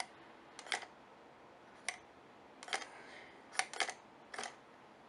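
Small metal clicks from the shutter mechanism of an Ansco Shur-Shot Jr. box camera as its lever is worked by hand, about seven irregular clicks with two close together past halfway. The shutter spring has come out of place, so the shutter is not opening.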